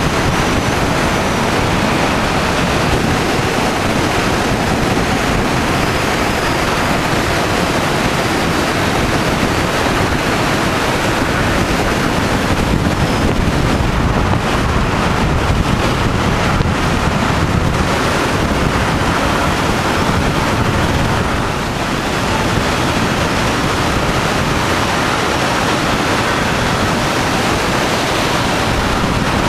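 A moving car's wind and tyre noise, heard as a steady loud rush on the microphone, dipping briefly about two-thirds of the way in.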